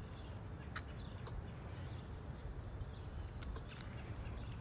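Quiet outdoor background: a faint, steady, high-pitched insect buzz over a low rumble, with a few faint clicks.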